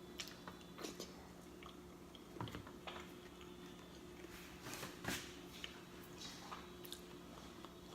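Close-miked chewing and lip-smacking: scattered soft wet mouth clicks and smacks of someone eating, with a couple of louder ones about two and a half and five seconds in.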